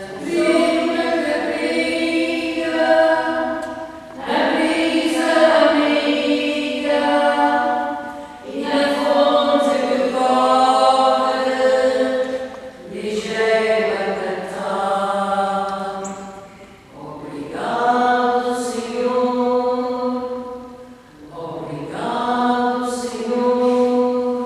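Unaccompanied liturgical chant sung by voices in slow, held phrases about four seconds long, with brief pauses for breath between them.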